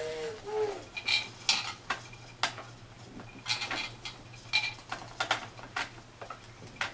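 Plastic toys on a baby's activity saucer clicking and clacking as the baby bats and fiddles with them: about a dozen irregular knocks, some with a short bright ring. A baby's brief coo runs out in the first second.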